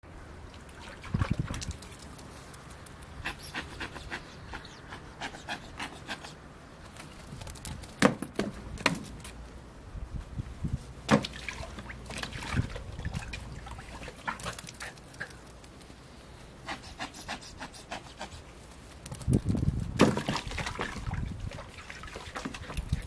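Dog panting in irregular bursts, with splashing and several sharp knocks, the loudest about eight, eleven and twenty seconds in.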